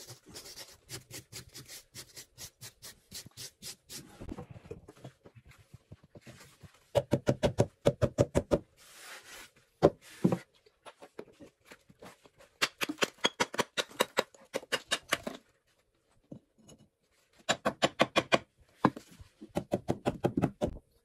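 Quick runs of knocking or tapping, about five or six knocks a second, in several bursts with short pauses between. The loudest runs come about seven seconds in, again in the middle, and in the last few seconds.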